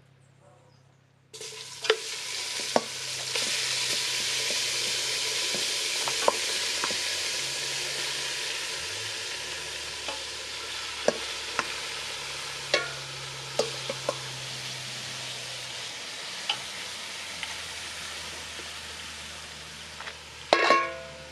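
Hot curried oil frying and sizzling in a pan, starting suddenly about a second in, with sharp knocks of a utensil stirring against the pan.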